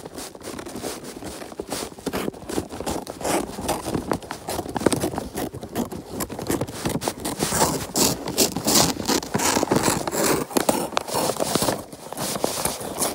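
Scissors cutting wrapping paper, with the paper crinkling and rustling as it is handled; a dense run of crackles and scrapes.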